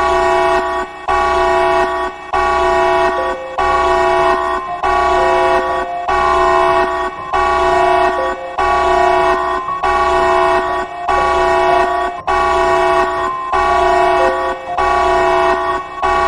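Emergency alert alarm tone: a loud chord of several steady tones sounding in repeated blasts about every 1.2 seconds, each blast stepping briefly between pitches, over a dozen times.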